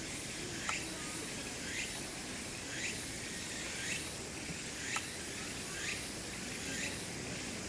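Outdoor insect chorus: a steady high buzz with a short rising chirp repeating about once a second, and a couple of faint clicks.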